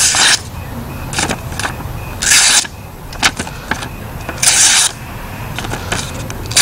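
Blind Horse Knives Bushcrafter blade slicing through a sheet of paper, a short hissing cut about every two seconds, four in all, with small paper ticks between, over a steady low rumble.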